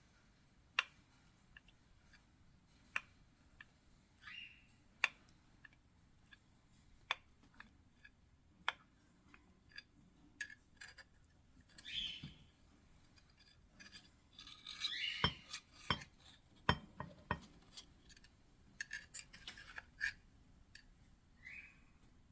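A spoon clinking and scraping against a glass dish while a dessert layer is spread: scattered sharp taps with a few short scraping strokes, busiest in the middle.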